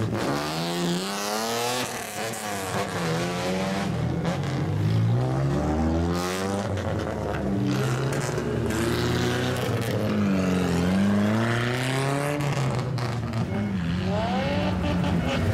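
Classic Japanese cars with straight-piped exhausts driving off one after another, their engines revved repeatedly so the pitch sweeps up and down in several rising and falling blips.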